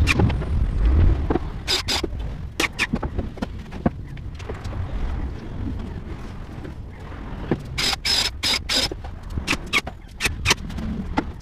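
Sharp knocks and taps on wooden cabinet panels during assembly, in clusters about two seconds in and again about eight seconds in, over a low rumble in the first second or so.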